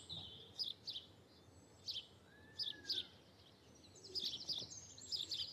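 Birds chirping: short high chirps scattered through, with one faint whistle that rises and falls a little past the middle.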